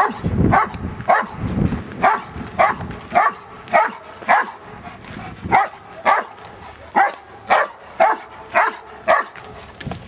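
German Shepherd barking in a steady series, about two barks a second, at a protection-training helper in a bite suit and sleeve. A low rumble runs under the first two seconds.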